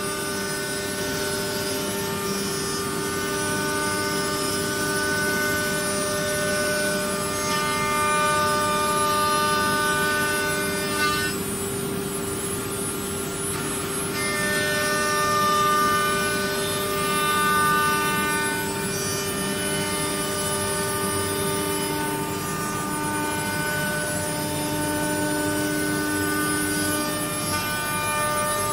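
CNC router's spindle motor running with a steady high whine made of several held tones. The upper tones drop away for about three seconds near the middle, then return.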